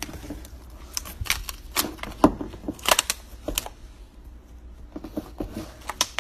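Irregular sharp clicks and crackles of a frozen plastic meal container being handled on a kitchen counter.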